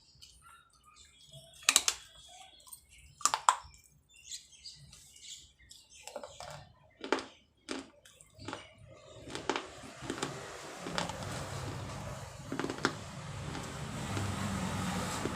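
Pieces of baked clay pottery bitten and chewed, a series of sharp crunches, loudest about two seconds in and again at three and a half. A steady hiss builds through the second half.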